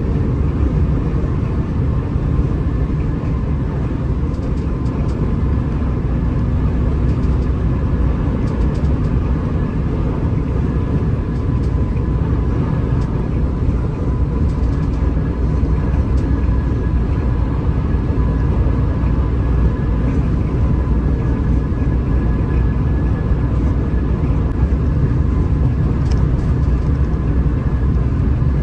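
Hino RM 280 bus cruising on a highway: a steady drone of engine and road noise, with a faint steady whine above it.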